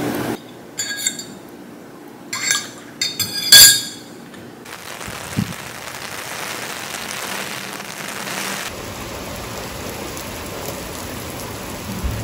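Several sharp, ringing clinks of dishes on a table, the loudest about three and a half seconds in. Then steady rain falls from about five seconds on.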